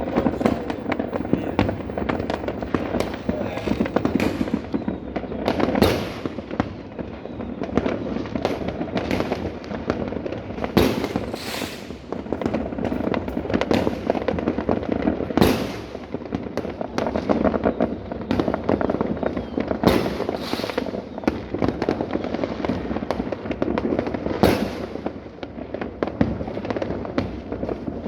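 Dense fireworks and firecrackers going off without a break: a constant crackle of overlapping pops, with sharper, louder bangs standing out every few seconds.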